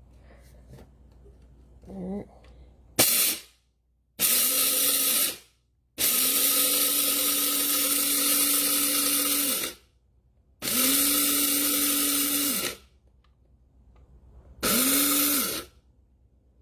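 Small electric blade coffee grinder run in five pulses while grinding pepper, the first very brief and the longest about four seconds in the middle. Each run is a steady motor whine with a gritty rattle of the spice against the blade, rising as it spins up and dropping away as it stops.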